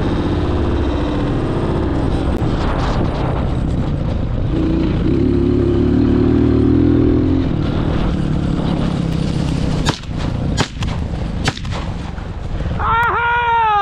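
Motorcycle engine running, then three gunshots within about a second and a half, about ten seconds in, as a wild boar is shot. High, falling cries start just before the end.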